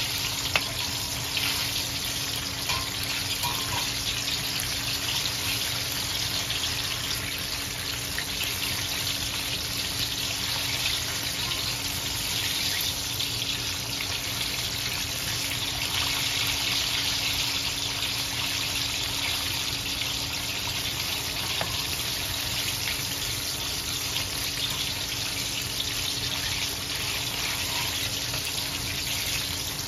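Battered chicken wings deep-frying in hot oil in a wok: a steady sizzle and bubbling, with now and then a light clink of the metal skimmer against the pan.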